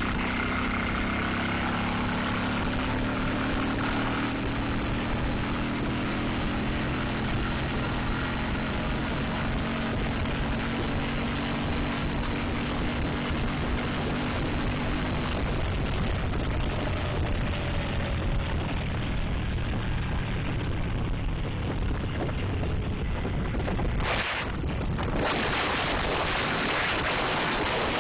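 Car travelling at high speed: steady engine hum under road and wind noise. The engine's hum sinks slowly in pitch and fades over the first fifteen seconds, and the wind rush grows louder about 25 seconds in.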